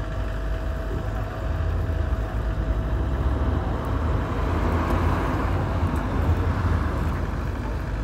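Steady, low rumbling roar of a forest fire burning in the trees, swelling through the middle.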